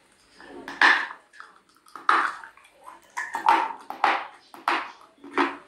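Close-miked crunching of a chunk of Kyrgyz edible clay being bitten and chewed: about six crisp crunches, the first about a second in and the loudest, the later ones coming roughly every half second.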